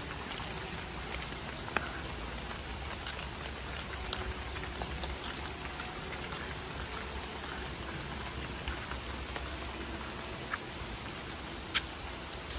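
Rain and water dripping from forest trees, a steady patter with a few louder single drops scattered through it.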